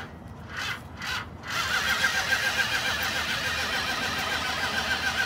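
Dodge Challenger SRT's V8 being cranked over by its starter: a steady whirring with a wavering high whine, beginning about a second and a half in after two short knocks, just before the engine catches.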